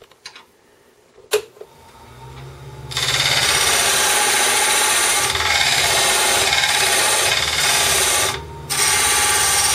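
A click, then the mini wood lathe's motor starts and spins up with a low hum. From about three seconds in, a diamond parting tool cuts into the spinning wood blank with a loud, steady scraping, cutting an angled tenon for a chuck; the cut breaks off briefly near the end and resumes.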